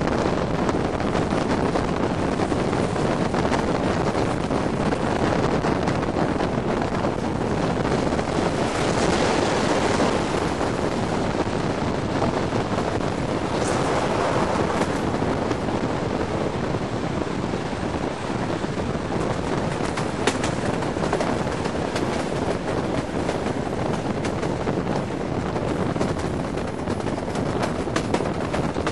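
Passenger train running on the rails, its steady rumble mixed with heavy wind buffeting a microphone held out of the carriage window, with a few sharp clicks.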